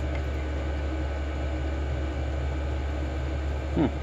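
Steady low hum with an even hiss, a constant background of machine or room noise. A brief pitched sound that sweeps in pitch comes near the end.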